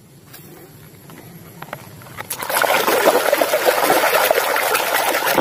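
Water splashing and sloshing as a hand swishes a small plastic toy robot through a tub of water. It starts about two seconds in after a quieter stretch and then stays loud and continuous.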